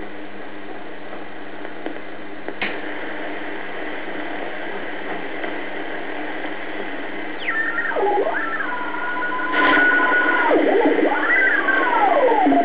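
BC-312G shortwave receiver's loudspeaker giving steady band hiss and static while being tuned between stations, with one click about two and a half seconds in. From about halfway through, whistling tones swoop down and up in pitch and hold briefly as the tuning passes across signals.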